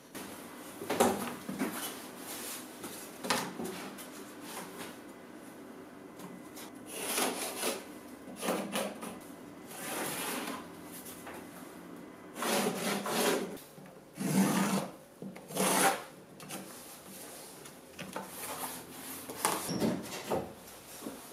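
Hand work on wood: a series of separate scraping and rubbing strokes, each about a second long, with knocks of wooden parts being handled. Among them, a utility knife is drawn through a sheet of wood veneer.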